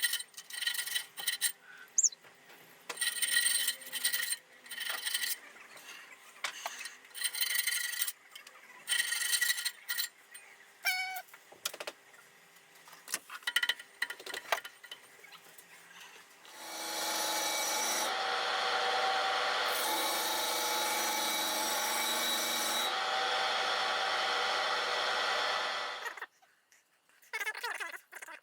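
Irregular strokes of a hand tool scraping and sawing at a workpiece, then a power tool runs steadily for about nine seconds and stops suddenly.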